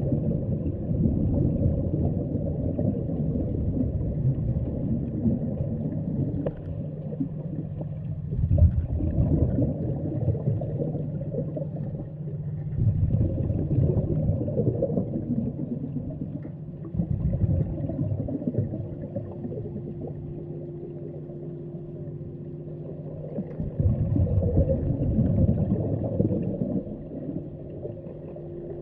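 Muffled underwater sound of a steady low machinery hum from the dive boat, with louder low bubbling swells every few seconds from a diver's exhaled air bubbles.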